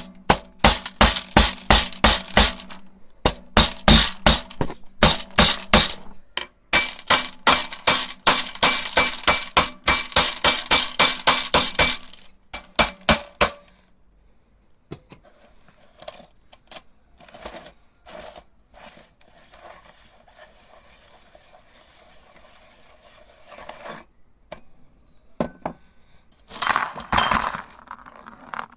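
Glass marbles clattering and clinking inside a meat grinder: rapid, dense clinks over a steady low hum for about the first thirteen seconds, then only scattered clinks, and a short burst of clinking near the end.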